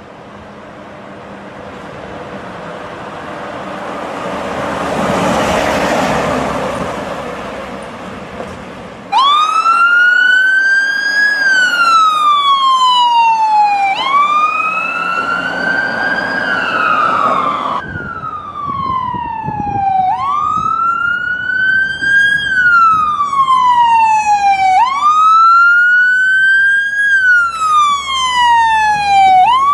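A rushing noise swells and then fades over the first several seconds. About nine seconds in, an American ambulance's electronic siren cuts in loudly on the wail setting, each cycle rising quickly and falling slowly, about every five seconds.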